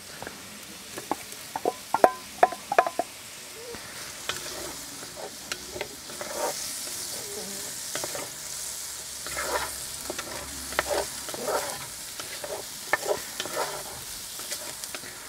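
Diced bacon and onions go into a hot Petromax cast-iron Dutch oven with a few sharp clinks near the start. They then sizzle as a wooden spatula stirs them, its repeated strokes scraping across the pot bottom.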